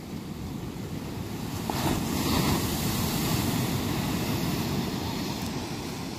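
Ocean surf breaking on a sandy beach: a wave crashes and washes in, swelling sharply a little under two seconds in and then slowly fading.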